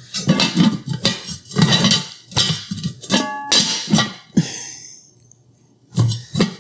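Lid of a lightweight aluminium nonstick stock pot clacking against the rim again and again as it is rocked in place, with one short metallic ring about three seconds in; the clatter stops about four and a half seconds in. The lid does not sit flat, which the owner puts down to a defective pot.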